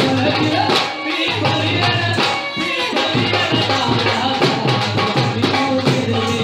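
Rajasthani folk music playing at a steady beat: drums and shaker-type percussion under a melody line.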